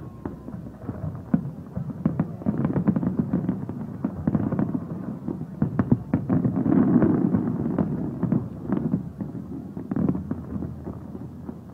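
Fireworks display: a dense, continuous barrage of aerial shells bursting with booms and crackles, swelling loudest about seven seconds in.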